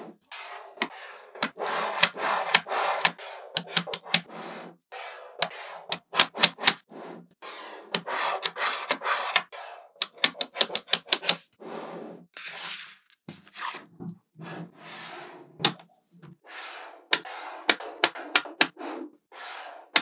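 Small neodymium magnet balls clicking sharply as they snap together, in quick irregular runs, mixed with stretches of rattling as hands press and slide panels made of the balls.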